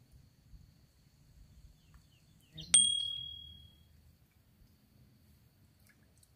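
A single bright metallic ding, struck once a little over halfway through and ringing for about a second as it fades, over faint outdoor background.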